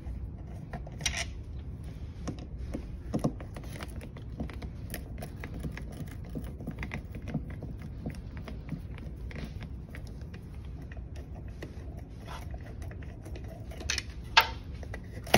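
Phillips screwdriver working the screws out of a plastic wall-mounted backplate: scattered small clicks and scrapes of metal on plastic, with a few louder clicks and a sharp knock near the end.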